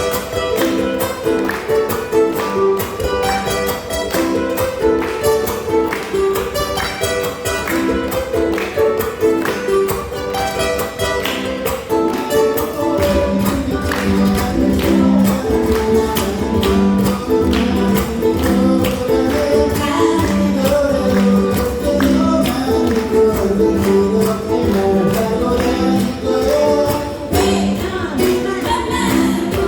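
Ukuleles strummed together in an ensemble, playing a song, with voices singing along.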